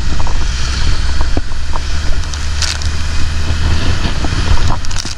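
Modified off-road jeep's engine running steadily as it drives through shallow muddy water, with the tyres splashing and wind noise on the microphone.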